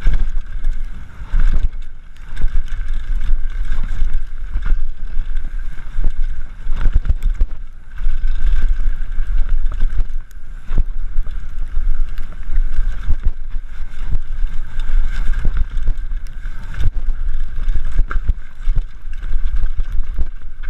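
Wind buffeting the microphone of a mountain bike rider's camera, with the bike rattling and knocking over rough trail. The knocks come irregularly, several a second.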